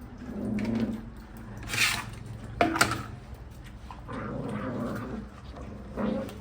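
Puppies growling over their food in low, rough stretches, with two short, loud sharp sounds about two and three seconds in.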